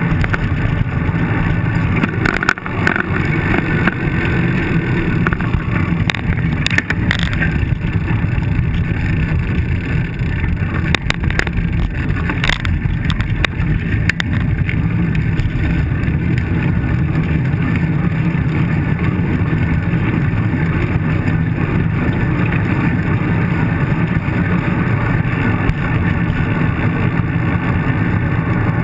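Steady wind rush and road rumble on a bicycle-mounted camera while riding at speed over rough pavement, with a few sharp knocks and rattles in the first half as the bike hits bumps.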